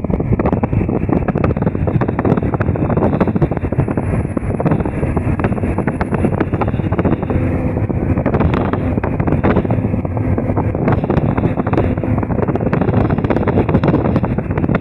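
Steady rumble of a moving bus heard from inside, road and engine noise with constant rattling clicks.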